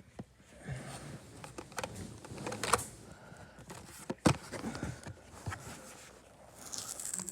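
Hands handling a Hot Wheels die-cast toy car and its packaging: scattered light clicks and rustling, with two sharper clicks about three and four seconds in.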